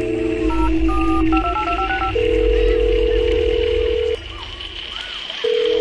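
Electronic intro jingle: a quick run of short beeps at shifting pitches, like phone-keypad tones, then a long held synth tone over a low rumble. It dips about four seconds in and the tone comes back near the end.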